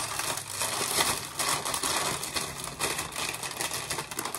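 Plastic crisp packets and snack bags rustling and crinkling as they are handled.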